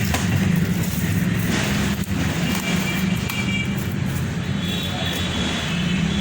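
A steady low mechanical hum, like an engine or machine running nearby, with faint background voices.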